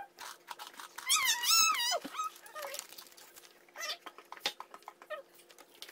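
A dog whining: one high, wavering whine about a second in, lasting about a second and dropping in pitch at its end, then a few short, fainter whimpers.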